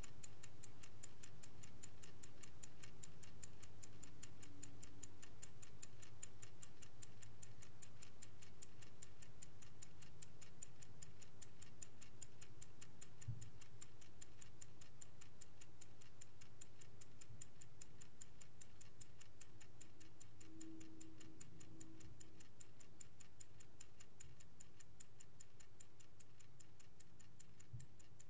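Vintage Swiss-made Angelus clock ticking with rapid, even ticks over a faint low hum, slowly growing quieter.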